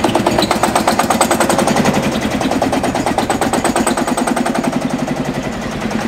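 Lanz Bulldog tractor's single-cylinder two-stroke hot-bulb engine running with a rapid, even beat of firing pops, heard close up.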